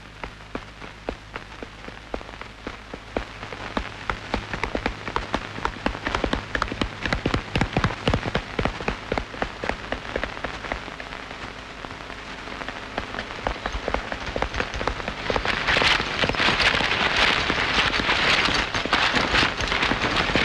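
Rain falling as a dense stream of drop ticks, growing heavier and louder about fifteen seconds in.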